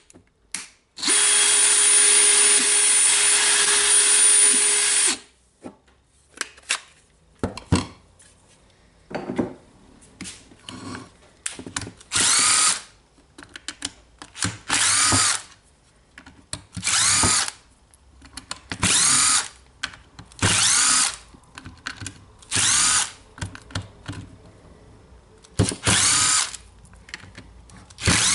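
A DeWalt DCD796 18 V brushless hammer drill runs steadily for about four seconds with an even-pitched whine; this drill has a reported fault of not changing speed. Then a second cordless driver whirs in about ten short bursts, each under a second, as it backs out the screws of the drill's housing.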